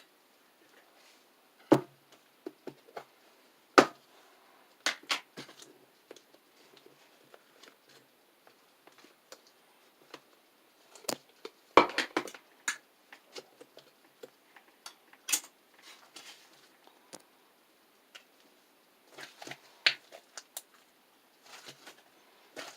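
Ice slime being pressed and squeezed by hand, its crisp dried top layer giving irregular sharp crackles and pops, with quiet gaps and a few denser clusters of crackling.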